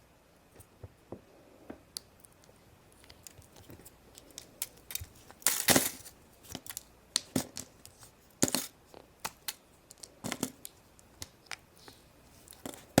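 Foil wrapper of a chocolate surprise egg crinkling and tearing by hand, in short bursts, with small sharp clicks and taps of the toy and its plastic parts being handled.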